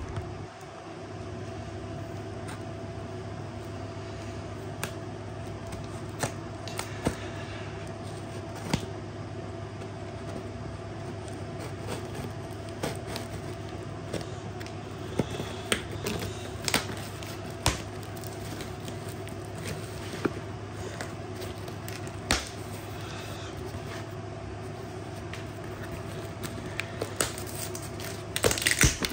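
Scattered clicks, scrapes and rustles of a cardboard shipping box being handled and opened, with a louder rustling burst near the end, over a steady low hum.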